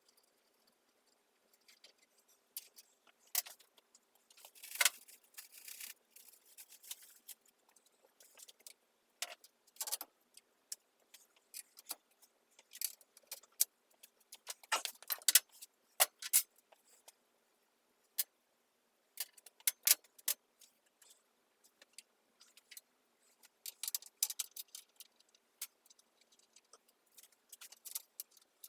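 Irregular metallic clicks and clinks of hand tools and bolts being handled at the bench, with a few sharper knocks among them.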